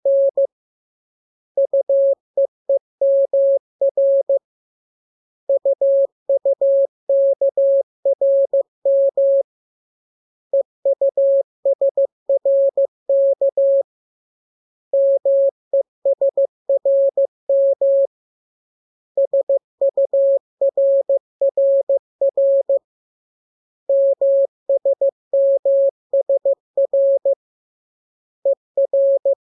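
Morse code sent as a single steady pure tone, keyed rapidly on and off in groups of characters with pauses of about a second between groups: a receiving-practice radiogram in the letters K, M, U, R, E and S.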